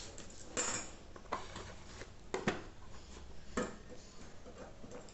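A package being cut open and handled: a few short scraping and knocking noises, the longest about half a second in, with others spaced roughly a second apart.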